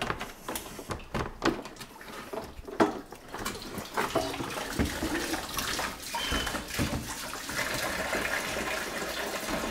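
Radiator and fan assembly knocking as it is worked loose and lifted out, then leftover coolant pouring out of the radiator in a steady stream from about halfway in.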